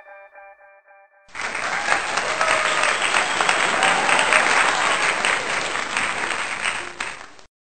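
The last notes of background music fade away with an echo, then applause starts about a second in and runs steadily for about six seconds before cutting off suddenly near the end.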